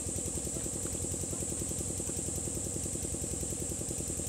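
An engine running steadily at idle, with a rapid, even beat and a steady high hiss above it.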